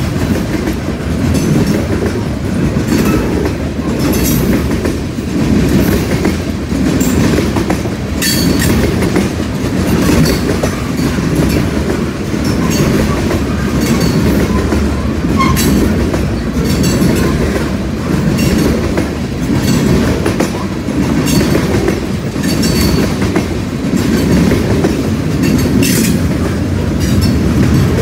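Freight train rolling past at close range: a loud, steady rumble with a rhythmic clickety-clack of steel wheels over rail joints, and sharp clanks scattered throughout.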